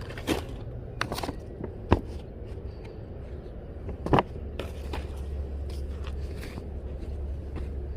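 Objects being handled while rummaging through a storage tote: scattered knocks, clicks and scrapes, the loudest knock about four seconds in, over a steady low rumble.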